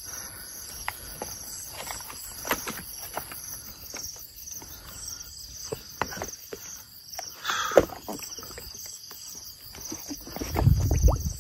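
Insects chirring in a steady pulsing chorus, over scattered creaks and knocks of rubber boots stepping onto a bamboo footbridge lying in floodwater. One sharper knock comes about eight seconds in, and a low rumbling noise near the end.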